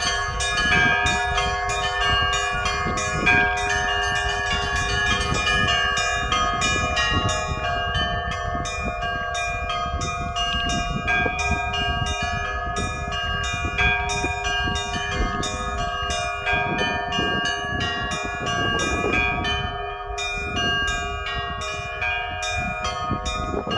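Russian church bells in a continuous peal: small high bells struck rapidly, several strokes a second, over the steady ringing of larger bells.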